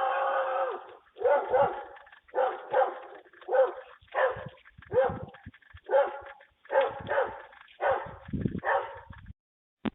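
A dog barking over and over, opening with one longer drawn-out bark and then a steady run of short barks, one to two a second, that stops shortly before the end. It comes through a doorbell camera's microphone, so the sound is thin.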